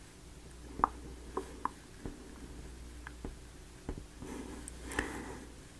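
Faint, irregular ticks and taps of metal tweezers placing small parts into a laser-cut wooden model floor, a dozen or so light clicks, a few with a brief ring.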